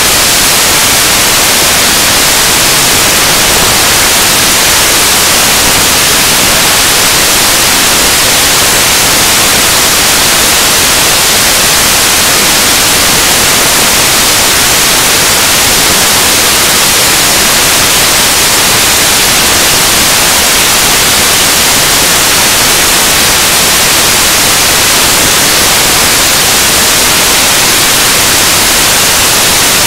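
Loud, steady static hiss like white noise, unchanging throughout and covering all pitches; it takes the place of the soundtrack, a sign of a corrupted or broken audio track rather than anything in the room.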